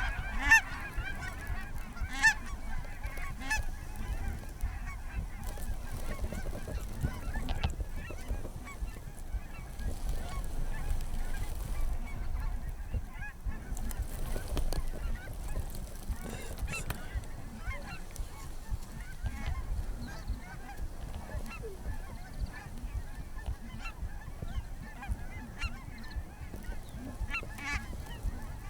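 Many overlapping goose honks and clucks, busiest in the first few seconds and thinner after, over a steady low rumble.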